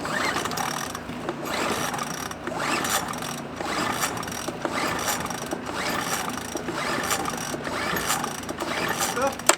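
Recoil pull-starter of a small 40cc Lifan inverter generator pulled over and over, about once a second, turning the engine over without it starting. Each pull makes a short rising whir.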